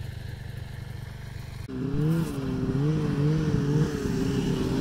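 A snowmobile engine runs with a low rumble. Just under two seconds in it suddenly gets louder, and its pitch wavers up and down with the throttle.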